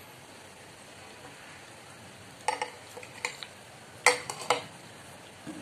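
Metal spoon and fork clinking and scraping against a ceramic plate while scooping up food. It is quiet at first, then a run of light clinks starts about halfway through.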